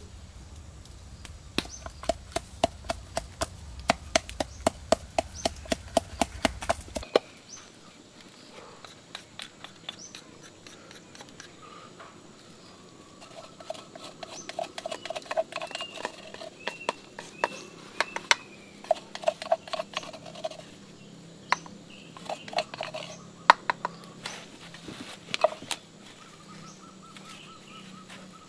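Wooden pestle pounding spices in a bamboo-tube mortar: quick, regular hollow knocks at about three a second. The knocks come in two long runs with a pause between, then a few scattered strikes.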